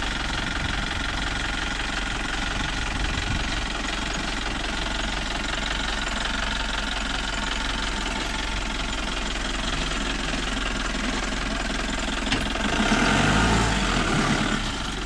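Jeep engine running over a rough track, growing louder for a couple of seconds near the end with a rising note, as if revving.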